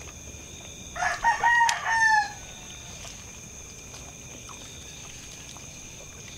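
A rooster crowing once, about a second in: one call of about a second and a half that holds its pitch and then falls at the end.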